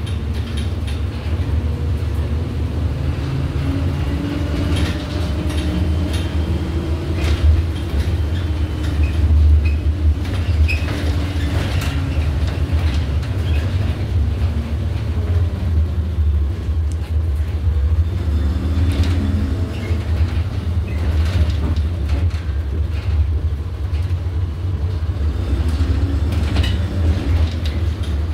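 Cabin noise inside an Iveco Urbanway city bus under way: a steady low rumble from the drivetrain and the road, with a faint tone that rises and falls, and scattered knocks and rattles from the bodywork and fittings.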